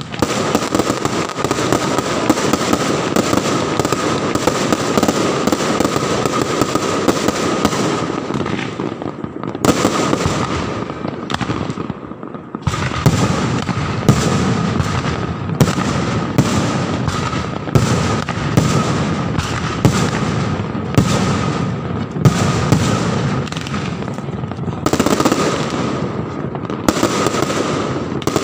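New Year's fireworks and firecrackers going off in a dense, continuous barrage of crackling bangs, with a brief lull about two-fifths of the way through. A steady high tone runs underneath.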